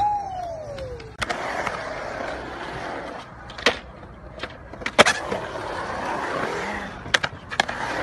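Skateboard wheels rolling on concrete, with several sharp clacks of the board hitting the ground, the loudest about five seconds in. A short falling tone sounds at the start.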